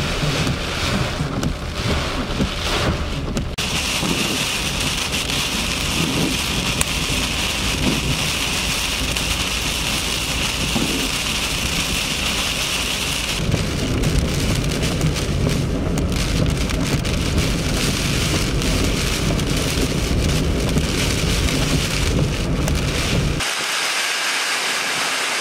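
Heavy hurricane rain pouring down in a steady hiss, with a deep rumble beneath it. The sound changes character abruptly a few times, and the rumble falls away near the end.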